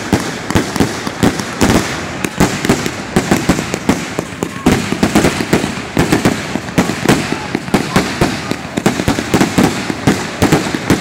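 Consumer firework cakes and aerial shells launching and bursting in a finale barrage: a dense, unbroken run of overlapping bangs, several a second.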